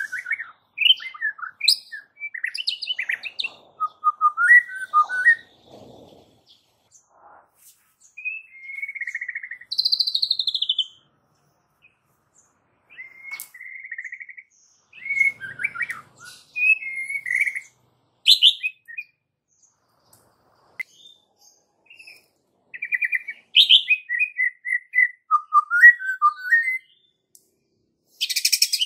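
White-rumped shama (murai batu) singing in separate phrases of clear whistles and quick trills, with pauses of a few seconds between them. A fast chattering burst comes near the end.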